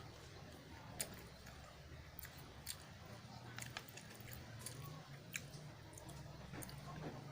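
Close-miked eating: chewing a mouthful of instant noodles, with scattered sharp wet mouth clicks. A low steady hum runs underneath.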